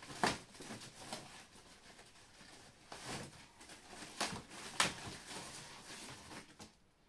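Thin plastic wrapping rustling and crinkling as a monitor stand is pulled out of its bag and unwrapped by hand, with a few sharper crinkles scattered through it.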